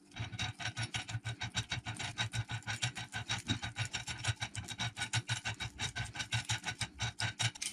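Coil winding machine clicking rapidly and evenly, about seven clicks a second, as a transformer's secondary winding of copper wire is unwound off the bobbin on its spindle and its mechanical turn counter counts the turns.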